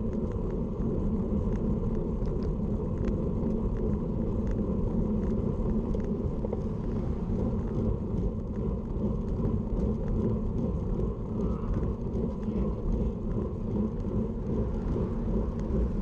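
Wind buffeting the bike-mounted camera's microphone with road noise from a road bike climbing at about 18 km/h: a steady, low, fluctuating rumble with no distinct events.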